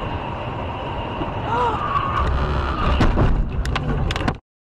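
Road and engine noise inside a car at highway speed. About three seconds in there is a heavy thump, followed by a quick run of sharp knocks and clatter, and then the audio cuts off suddenly.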